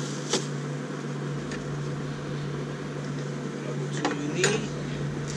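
A steady low hum with hiss over it, with a few light clicks and clinks of hand tools on the engine's intake parts as it is taken apart; the loudest clink comes near the end.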